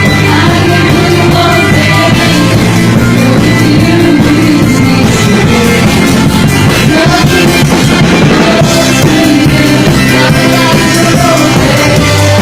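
Live worship band playing loud and steady, with singing over drum kit and amplified instruments.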